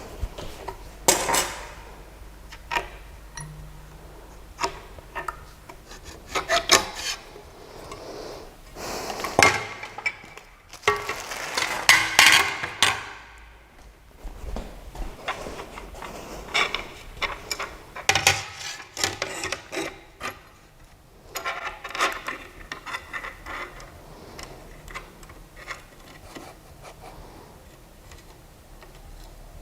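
Hands handling objects: irregular rubbing and scraping with scattered clicks and light knocks, busiest in the middle stretch, over a faint low hum.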